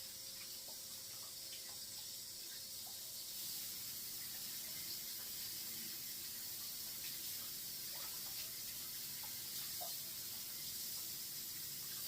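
Kitchen sink tap running steadily while hands are washed under it, with small splashes.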